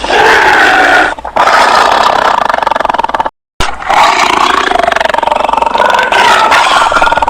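Tiger roaring and growling in long, rasping calls whose pitch bends up and down, with a brief cut to silence about three seconds in.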